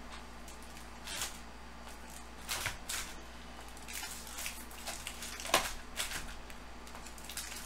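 Foil-wrapped baseball card packs crinkling and cardboard boxes sliding and bumping as they are handled, in short scattered rustles and light knocks. The loudest comes about five and a half seconds in.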